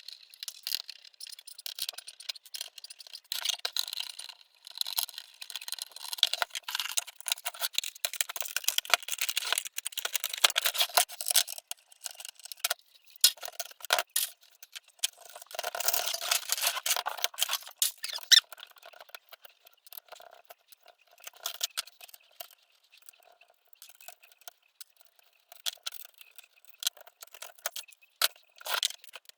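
Hand work at a bench: rapid, irregular clicks, taps and scrapes of parts and tools being handled. The sounds are busiest in the first half and thin out toward the end.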